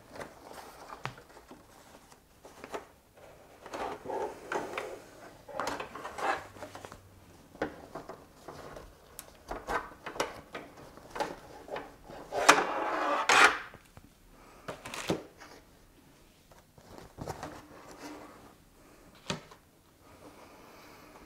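Cotton fabric rustling and being handled as it is taken off a plastic embroidery hoop, with scattered small clicks and knocks. The loudest is a longer rustle about twelve to thirteen seconds in.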